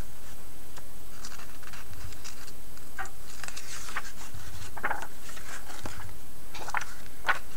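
Pages of a thick paper catalog being flipped, with a series of short paper swishes and rustles, roughly one a second.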